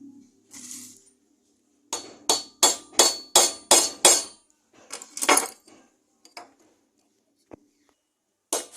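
Hammer tapping on washing-machine motor parts to seat a part during reassembly. There are about seven quick, ringing metal strikes in a row, then a louder single strike and a few lighter taps.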